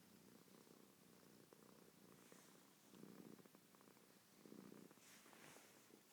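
Overweight domestic cat snoring faintly: low rumbling breaths a second or two apart, with soft airy hisses between them. The owner puts the snoring down to her weight.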